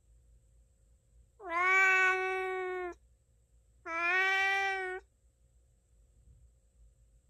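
A domestic cat meowing twice: two long, drawn-out meows, the second a little shorter, each dipping briefly in pitch at the start and then held level.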